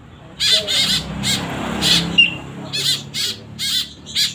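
Young white-breasted woodswallows (kekep babi) giving a rapid series of loud, harsh begging squawks, with a short high whistle note about two seconds in.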